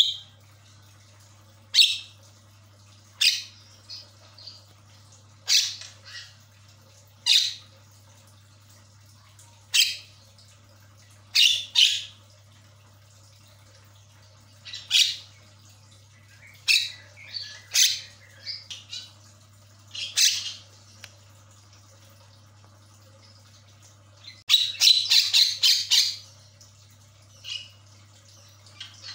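Javan myna giving short, sharp squawking calls one at a time, every second or two, with a quick run of chattering calls about 25 seconds in. A faint steady low hum runs underneath.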